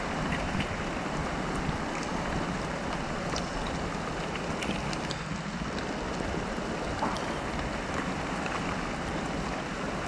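Steady rush of shallow water, with light splashes and small clicks as a hand feels through it among sticks and grass.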